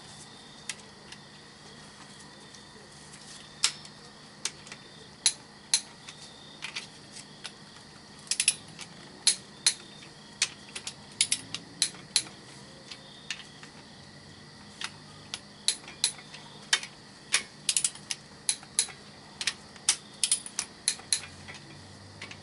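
A torque wrench ratcheting in irregular runs of short, sharp clicks as the connecting rod bolts of an engine's bottom end are tightened to 33 ft-lb.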